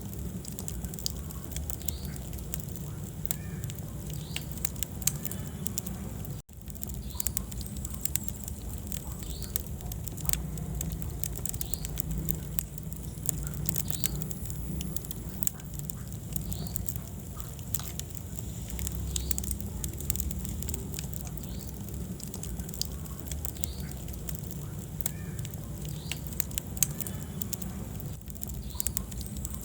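Wood fire burning in a fireplace: a steady low rumble of flame with frequent irregular crackles and pops. The sound cuts out for a moment about six seconds in.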